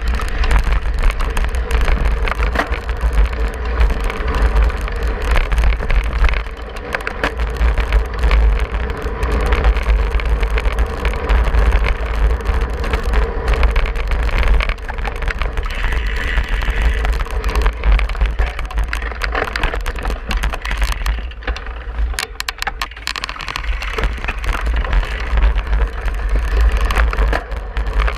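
Wind buffeting the microphone of a handlebar-mounted camera on a cyclocross bike ridden fast, a heavy low rumble with the rattle of the bike and the tyres over grass and gravel.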